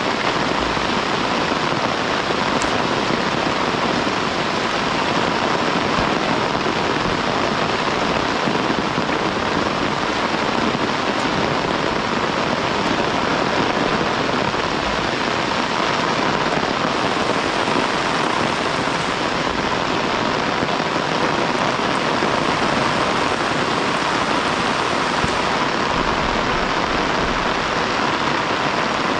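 Heavy rain falling steadily, an even hiss of rain with no breaks.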